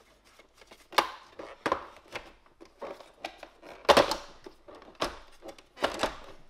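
Plastic clips on the back of a GM instrument cluster's housing being prised and snapped loose by hand. The plastic makes sharp clicks and knocks at irregular intervals, the loudest about four seconds in.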